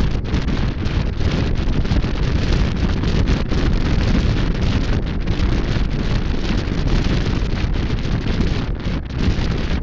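Steady wind buffeting the microphone of a camera mounted on a motorcycle riding at road speed, with the motorcycle's running masked underneath.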